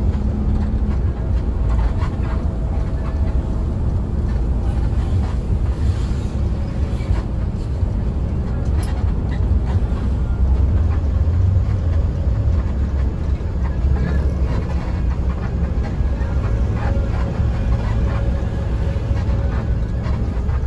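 Mercedes-Benz OH1526 bus running along the road, heard from inside the passenger cabin as a steady low engine and road drone.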